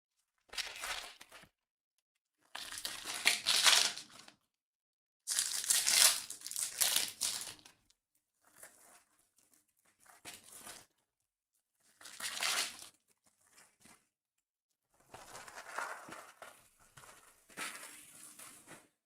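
Trading card packaging being torn open and crumpled: irregular bursts of crinkling and tearing wrapper, each a second or a few seconds long, with short quiet gaps between them.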